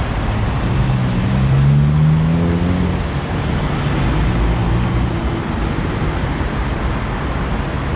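Road traffic at a city intersection, with one vehicle's engine rising in pitch as it accelerates from about a second in to about three seconds in.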